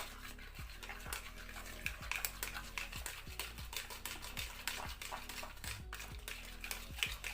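Soy-sauce marinade being mixed in a bowl: a utensil clicking and scraping against the bowl many times. Background music with a low beat runs underneath.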